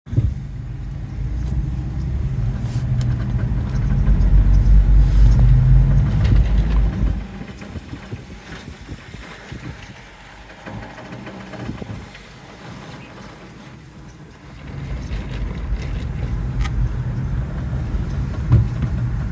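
2019 Mazda CX-5 moving at slow speed with a low rumble that fades for several seconds and comes back, and scattered short knocks and taps, one sharp knock near the end. The owner takes the knocking while turning for a failing CV axle.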